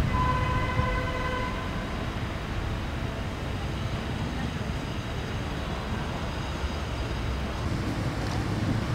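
Steady low rumble of distant city traffic, with a steady pitched tone, like a horn, sounding for about a second and a half at the start.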